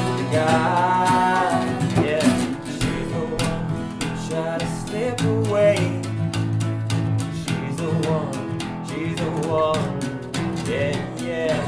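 Acoustic folk-rock band playing: two acoustic guitars and an acoustic bass guitar strumming chords, with singing voices coming in and out over them.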